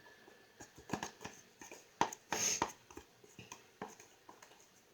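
A thick shampoo-and-flour slime mixture being stirred by hand: irregular soft clicks and squelches, with one louder, longer one about halfway through.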